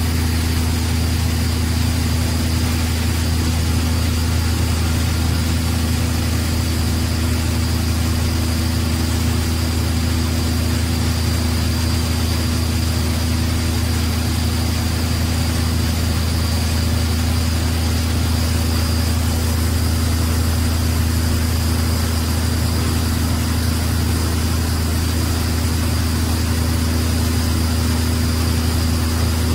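Engines of a mobile tub-grinder wood shredder and a wheel loader running steadily: a constant low drone with a faint high whine above it.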